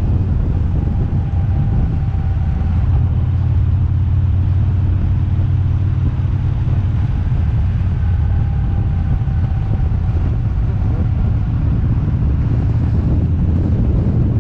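Car driving along at steady speed: a constant low rumble of engine and road noise.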